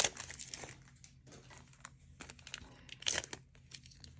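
Foil trading-card booster pack wrapper crinkling and tearing as it is opened by hand, in irregular crackles, loudest at the start and about three seconds in.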